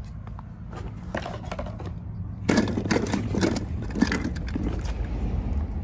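Hollow plastic ball-pit balls clattering and rustling as a hand digs among them and the die-cast toy cars, loudest about halfway through.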